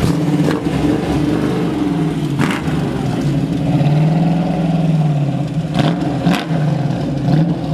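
Engine of a blue Eleanor-style Ford Mustang fastback revving up and down in pitch as the car pulls away slowly.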